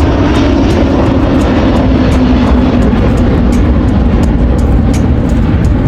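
An aircraft flying past with a loud, steady engine roar and a low tone that slowly falls in pitch as it goes by.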